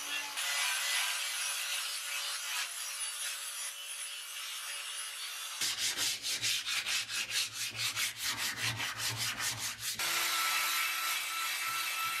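Sanding on a steel lawn mower deck: a steady sanding hiss, then from about six seconds in hand sanding with sandpaper in quick, even strokes, about five a second. From about ten seconds in, a Bosch power drill with a wire cup brush runs with a steady whine against the rusty steel.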